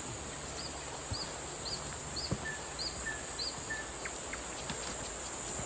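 Steady high-pitched chorus of insects, with a bird giving a series of six short, high chirps about two a second in the middle, plus a few fainter lower notes.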